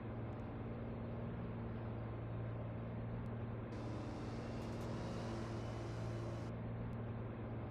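A vehicle engine running steadily, a low even hum, with a higher hiss joining for about three seconds in the middle.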